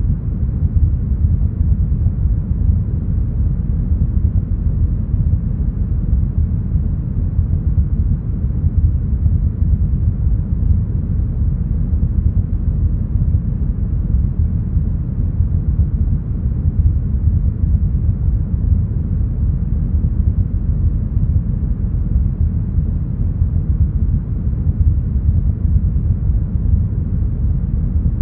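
Deep, smoothed brown noise: a steady, even low rumble of noise, strongest in the bass and with no highs, unchanging throughout.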